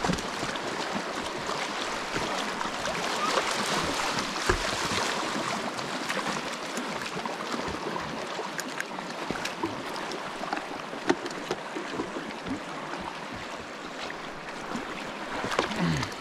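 Kayak paddled on a creek: a steady rush of moving water around the boat, with scattered small splashes from the paddle.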